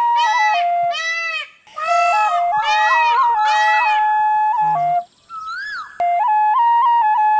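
Bansuri flute ringtone music: a flute melody stepping from note to note, with a repeating swelling chirp-like sound, about two a second, laid over it in the first half. About five seconds in it breaks off for a moment with a short gliding note and a click, then a new flute melody starts.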